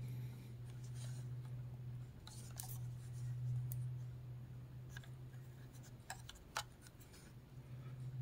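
Faint handling noise of a small plastic Sony Walkman FM radio being turned over in the hands: light rubbing and a few short clicks, the loudest about six seconds in, over a steady low hum.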